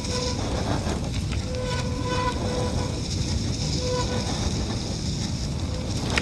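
Wind rushing over the microphone and tyre rumble as the DUOTTS C29 electric mountain bike rides along a dirt forest track. Short, faint whining tones come and go throughout.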